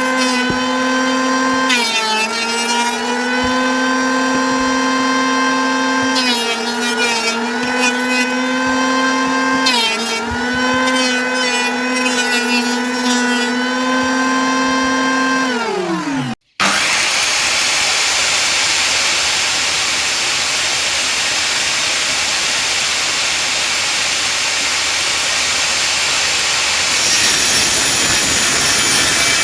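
Woodworking power tool motor running at a high steady pitch, dipping briefly three times as it takes load in cuts, then winding down. After a break in the audio, a steady loud hissing machine noise runs on.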